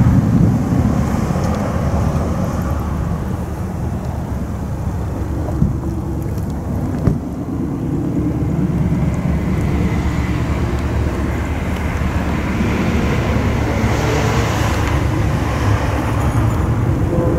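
Low, steady rumble of approaching diesel freight locomotives working, growing a little louder in the second half.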